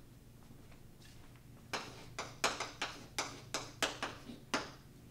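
Chalk writing on a blackboard: a run of about nine sharp taps, roughly three a second, starting about a second and a half in and stopping shortly before the end.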